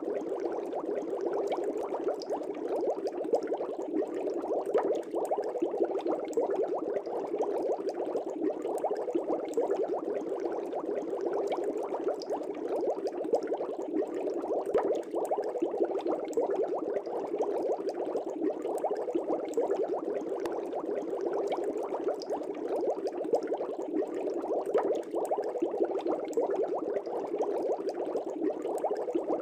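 Air bubbles streaming up through aquarium water: a steady, dense bubbling made of many small, quick pops.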